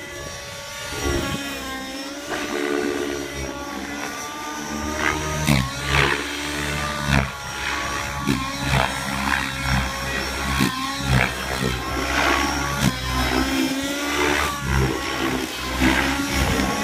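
Align T-Rex 700 RC helicopter's YS 91SRX glow engine, fitted with a Hatori muffler and tuned rich, running hard through aerobatic flight. Its note rises and falls over and over as the load and the distance change.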